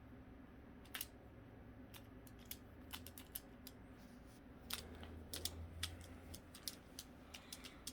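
Pyraminx pyramid puzzle being twisted by hand: faint, irregular sharp plastic clicks as its pieces turn, coming more often in the second half.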